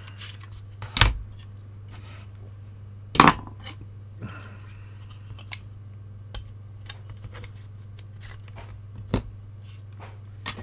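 Clicks and knocks of a VCR power-supply board and its parts being handled and set down on a cutting mat, with scattered lighter ticks. The loudest knock comes about three seconds in.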